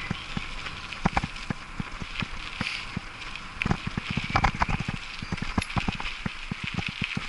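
A bicycle clattering over a rough gravel forest track, with irregular knocks and rattles over a steady tyre and wind hiss; the rattling is thickest about four to five seconds in.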